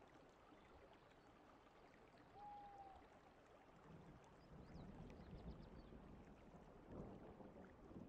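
Near silence: a faint, steady rushing noise with a low rumble, and one brief, faint whistled note about two and a half seconds in.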